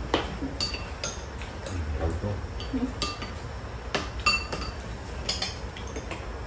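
Chopsticks and spoons clinking and tapping against ceramic bowls and plates as people eat, in scattered short clinks, some with a brief ring.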